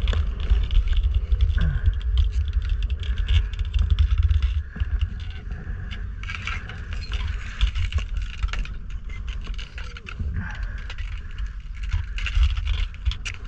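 Wind buffeting the microphone with a steady low rumble, overlaid by scattered short scrapes and clicks from ice skates on the ice and handling of the wing and its leash.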